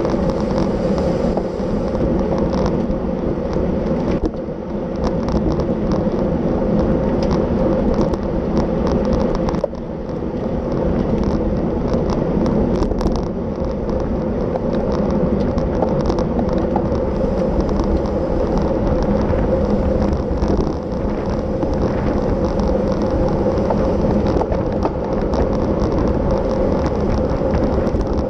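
Wind rushing over the microphone and tyre and road noise from a racing bicycle ridden at speed, with a steady low hum and many small clicks.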